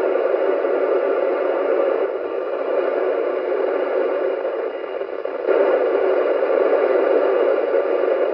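Hiss of FM receiver noise from a Yaesu FT-991 transceiver's speaker, squelch wide open, on the ISS repeater downlink near 437.8 MHz with no voice coming through. The noise sinks a little from about two seconds in and jumps back to full strength about five and a half seconds in.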